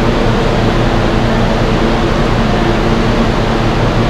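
Loud, steady roar of subway station noise with a faint low hum under it.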